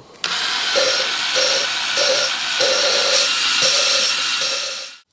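Cordless drill spinning a valve against its seat in a small-block Chevy cylinder head with valve-lapping compound: a gritty grinding with the drill's motor tone coming and going about twice a second. It stops abruptly near the end.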